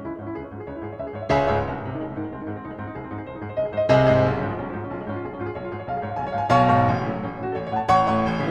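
Piano music: slow, sustained notes, with fresh chords struck about a second in, about four seconds in, and twice more in the last few seconds, each ringing out.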